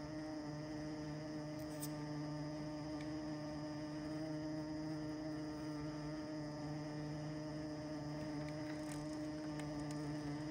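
Electric motors in the motor blocks of a USA Trains SD70 large-scale model locomotive humming steadily under load as the model pulls against a drawbar scale at a fixed throttle step. A lower hum drops in and out every second or two.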